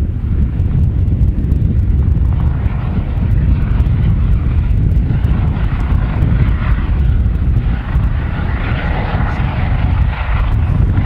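Eurocopter EC135 helicopter hovering low, with a steady deep rotor rumble and a rushing turbine noise that grows louder through the middle and later part.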